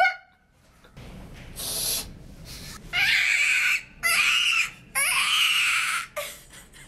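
A person making a vocal sound effect: three loud, breathy hissing blows of about a second each, after a fainter hiss.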